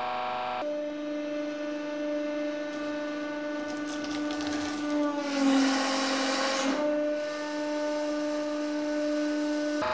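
Hydraulic press pump and motor running with a steady hum. About four and a half seconds in, a loud hissing rush comes up and the hum drops in pitch as the press comes under load crushing the Play-Doh, then it settles back to the steady hum.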